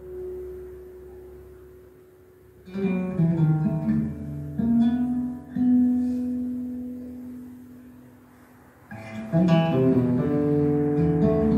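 Solo acoustic guitar playing slow, spaced phrases of plucked notes. A held note dies away first, then a few notes come at about three seconds, a long note rings out and fades, and a louder, fuller run of notes starts near the end.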